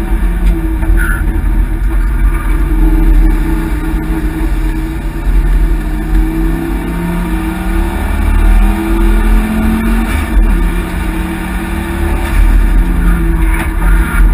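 Engine of an XR5 race car heard from inside the cabin on a hot lap. Its pitch rises under acceleration and drops at gear changes and braking, over steady road and wind noise.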